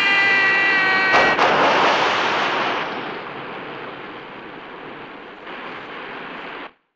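A man's long, drawn-out yell, slowly falling in pitch, ends about a second in with a big splash into a river. Rushing water follows, gradually quieter, and cuts off near the end.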